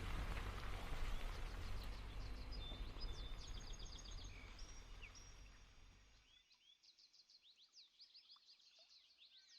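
Small birds chirping and singing in quick, repeated high notes over a steady low rumbling noise that fades away about six seconds in, leaving only the birdsong.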